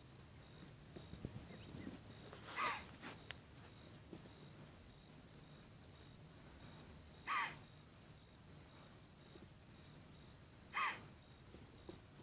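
Whitetail deer alarm-snorting three times, several seconds apart, each a short sharp blast of air: the alarm of deer that have noticed an approaching person. A steady insect drone underneath.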